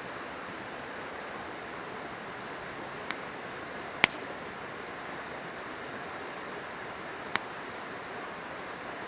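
River water rushing steadily, with a wood campfire crackling: three sharp pops, about three, four and seven seconds in, the second the loudest.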